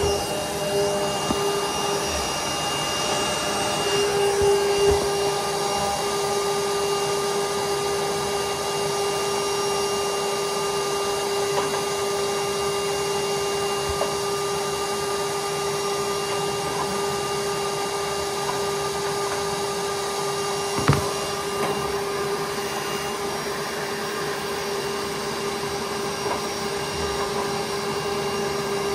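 Wet vac motor running steadily with a constant hum while it draws off water drained from a leaking radiator valve. A single sharp click comes about two-thirds of the way through.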